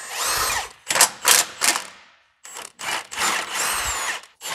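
Cordless power ratchet on a long extension spinning out exhaust flange bolts that come free easily. Its motor whine rises and falls in pitch, between short ratcheting bursts, with a brief pause a little over two seconds in.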